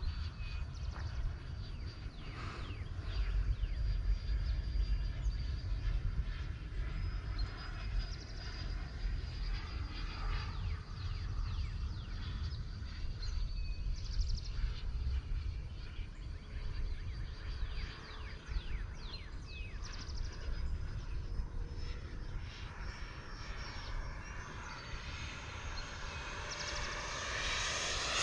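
Distant whine of an HSDJETS 105 mm electric ducted-fan F-16 jet in flight, over a steady low rumble. The jet grows louder near the end as it comes closer.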